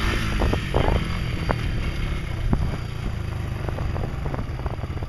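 Honda ATV engine running at low speed while the quad rolls over snow, getting a little quieter about halfway through as it eases off.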